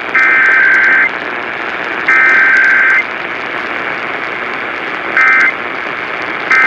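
Emergency Alert System SAME data bursts received over an AM radio with static hiss. Two raspy, buzzing header bursts of about a second each, a second apart, then about two seconds later two short end-of-message bursts, as in a required weekly test with no attention tone.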